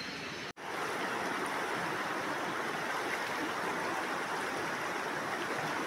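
Steady rushing of a fast-flowing river, starting just after a brief dropout about half a second in.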